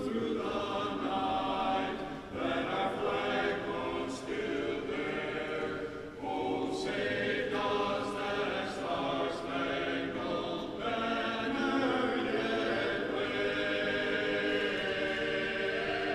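The national anthem being sung in an ice hockey arena: long held sung notes with short breaks between phrases.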